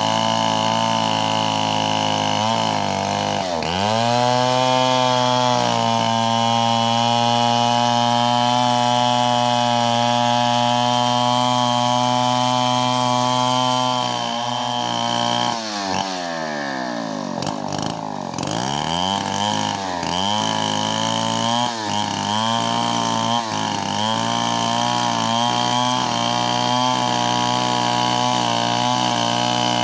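STIHL chainsaw running at high revs while ripping a coconut-palm log lengthwise. The revs dip briefly about three and a half seconds in, drop away and climb back up around the middle, and then waver repeatedly under load.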